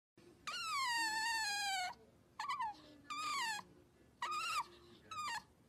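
Otter making high-pitched squeaking calls: one long call that falls in pitch, then four shorter squeaks.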